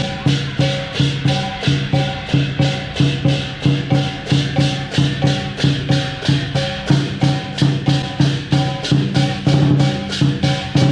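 Lion dance percussion ensemble, with big drum, clashing cymbals and gong, playing a fast, steady beat of about four to five strikes a second.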